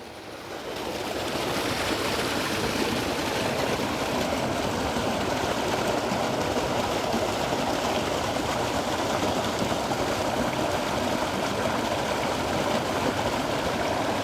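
Small creek waterfall splashing and rushing steadily. It grows louder over the first second or so, then holds even.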